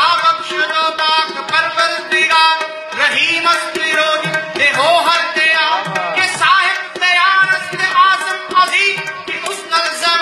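Sikh kirtan music: a harmonium playing a melodic passage over tabla accompaniment.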